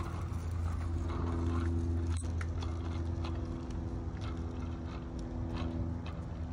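A steady mechanical hum from an unseen motor or engine, holding several constant pitches, with a few faint ticks and clicks over it.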